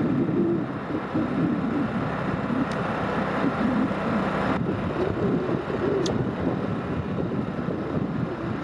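Wind buffeting the microphone over a steady outdoor wash of water around an open boat, with a couple of faint ticks.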